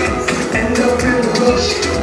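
Loud Afrobeats music played through a club PA, with a steady beat of deep bass pulses and dense shaker-like percussion.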